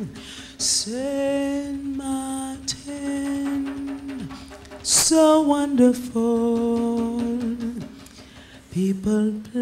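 A woman singing long, held notes into a microphone, several sustained phrases with short breaks between them, the pitch stepping up and down from phrase to phrase.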